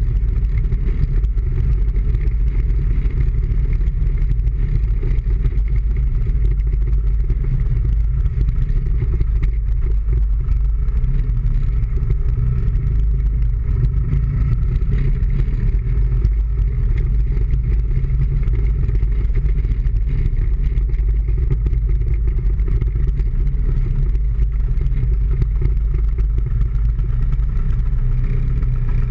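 Steady engine and road-and-wind noise of a vehicle driving slowly, picked up by a camera mounted outside on its front fender, with heavy low rumble from wind on the microphone.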